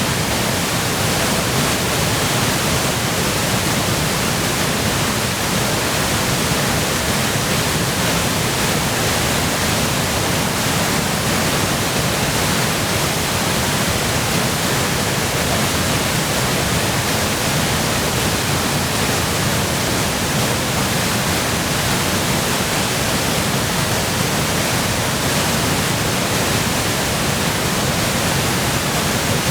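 Waterfall running high with spring meltwater and storm runoff: a loud, steady, unbroken rush of falling water.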